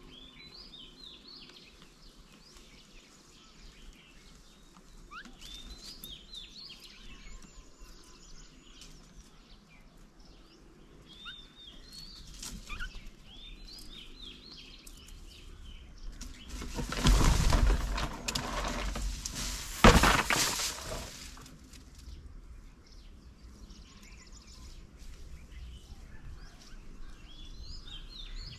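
Many small birds chirping and calling, with short quick notes coming and going throughout. About halfway through, a loud rushing noise lasts around four seconds, peaks twice, then dies away while the chirping carries on.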